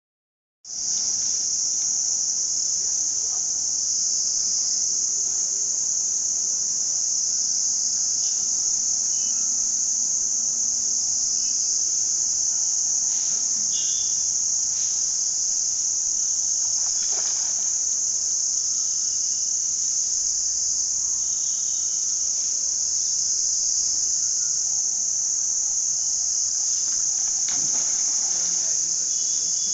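Loud, steady, high-pitched drone of an insect chorus, unbroken once it begins a moment in.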